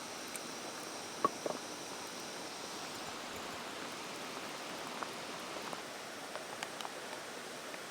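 Steady rushing outdoor background noise, with a few short, sharp clicks scattered through it.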